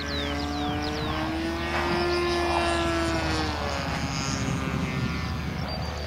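O.S. Max engine of a radio-controlled Extra 300S aerobatic model plane droning overhead, its pitch rising about two seconds in and then falling away as the plane passes and manoeuvres.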